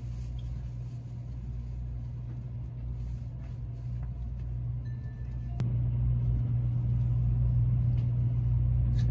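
Steady low rumble of a moving vehicle. A sharp click comes about halfway through, and the rumble is louder after it.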